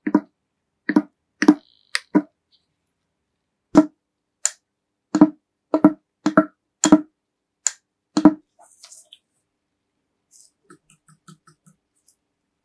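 Restored vintage electric car horn, its vibrating metal diaphragm sounding in about a dozen short, buzzy honk blips at irregular spacing over eight seconds, then a few faint clicks near the end.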